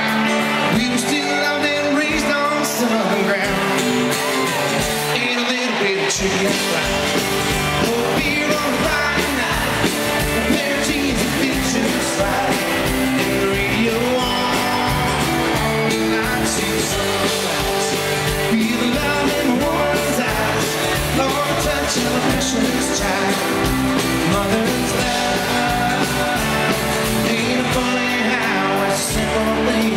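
Live country band playing, recorded from the crowd: a male singer over amplified acoustic guitar, drums and bass. The bass end comes in fuller about six seconds in.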